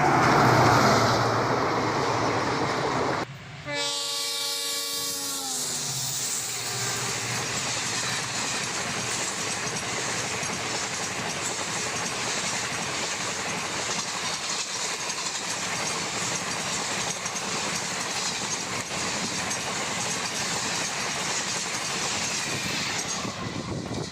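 A passing train: loud rushing noise, then after a sudden break a locomotive horn sounding for about two seconds, its pitch dropping as it goes by, followed by a steady rush of a train running past on the rails.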